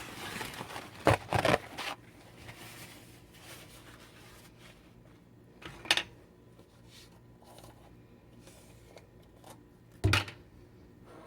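Kitchen handling noises: a few short knocks and clatters, a cluster about a second in, one midway and one near the end, over a faint steady hum.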